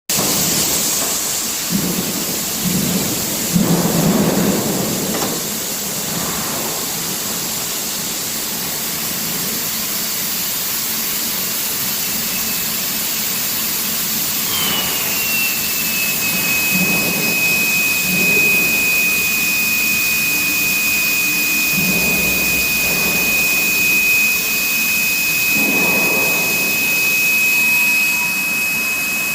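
Rail induction hardening machine running amid steady factory noise. About halfway through, a high steady whine comes in, dipping slightly in pitch at first and then holding.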